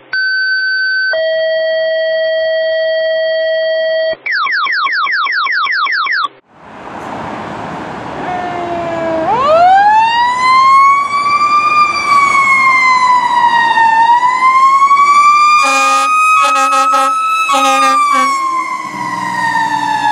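A short electronic intro of steady beeping tones and quick rising sweeps, then a fire engine's siren winds up from low to a high wail that rises and falls slowly. About two-thirds of the way through it is broken by a string of short horn blasts, and near the end it winds down.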